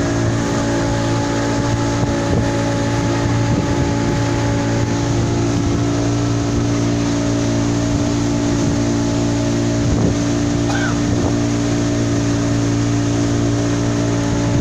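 Pontoon boat's engine running steadily at cruising speed, a constant hum with water churning in its wake.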